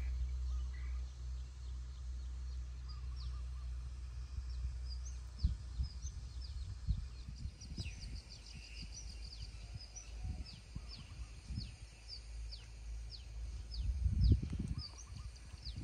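Birds calling with many short, quick falling chirps, over wind rumbling on the microphone that comes in gusts, the strongest near the end.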